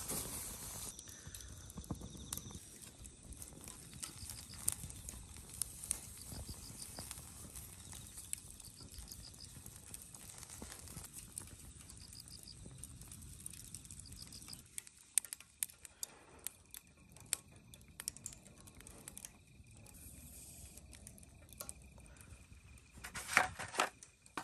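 Corn grilling on a wire rack over a charcoal fire pit: scattered small crackling clicks over a low rumble. Near the end come a few sharp clicks and crinkles as the corn and tongs go into an aluminium foil tray.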